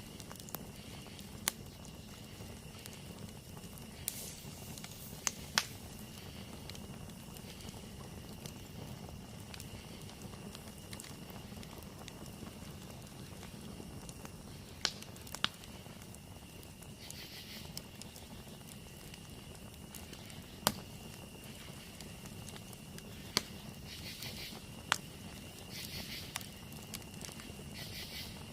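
Wood campfire burning, with sharp crackles and pops every few seconds over a steady high insect trill; in the second half, bursts of pulsed insect calls join in.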